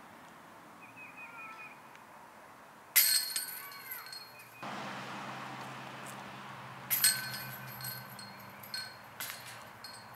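Putted discs striking the hanging metal chains of a disc golf basket: a sharp jangle a few seconds in, another about four seconds later, and smaller clinks near the end, each ringing briefly.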